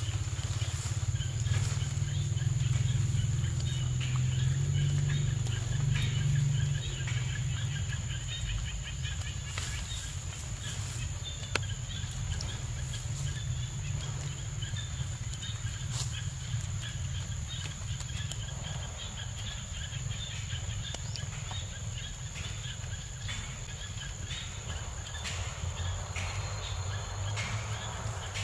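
Forest ambience: a steady high-pitched insect drone with scattered bird chirps, over a low rumble that is louder for the first several seconds.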